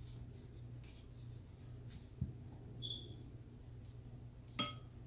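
Faint, soft handling sounds of hands folding and sealing wonton wrappers, over a steady low hum. A light tap comes about two seconds in and a sharper click near the end.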